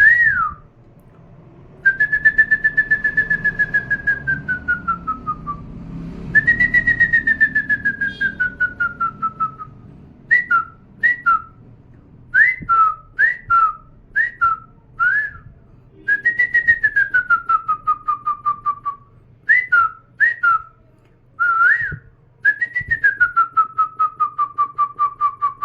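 A man whistling an imitation of an electronic calling bell (doorbell): long pulsing tones that slide slowly downward, alternating with runs of short two-note chirps.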